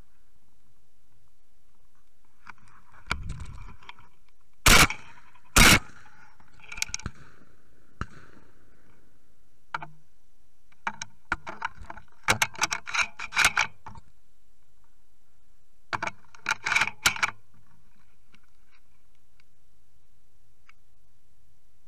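Two shotgun shots about a second apart, followed by bursts of metallic clicking and rattling from the gun being handled.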